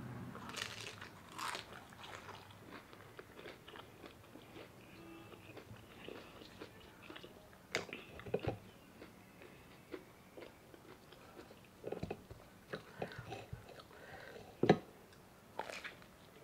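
Close-miked eating sounds of a chicken spring roll: crisp bites and chewing with scattered small clicks. One sharp bite near the end is the loudest.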